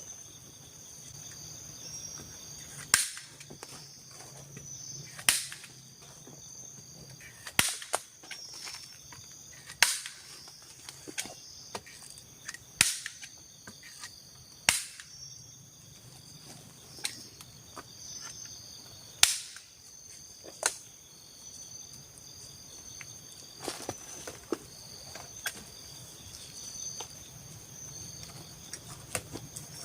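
Irregular sharp strikes of a tool on wood, one every two or three seconds, over a steady high chirring of forest insects.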